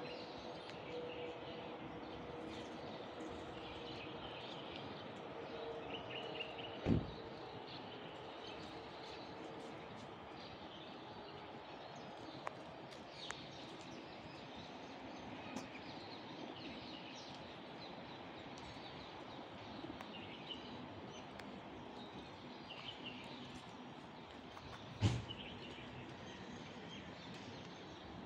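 Outdoor street ambience with sparrows chirping in short bursts now and then. Two sharp knocks stand out, one about seven seconds in and one near the end.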